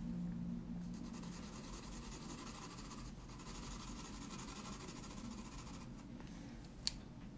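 Coloured pencil rubbing and scratching across toned paper in soft shading strokes, softening an edge. A single sharp click sounds near the end.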